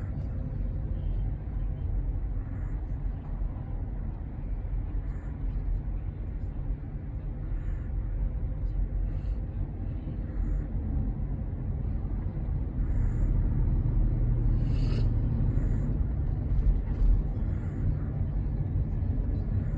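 A Pomeranian snoring in its sleep: soft, regular breaths about every two and a half seconds over a steady low rumble.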